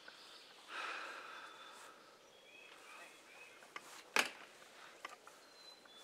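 Quiet outdoor ambience with songbirds calling: a short breathy rush about a second in, then a run of three quick chirps, and a brief thin whistle near the end. A single sharp click a little after four seconds is the loudest sound.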